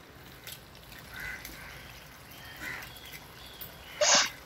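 A hen's egg cracked open by hand, then the raw egg dropping into hot oil in a clay kadai of chicken and vegetables, with a short loud sizzle near the end.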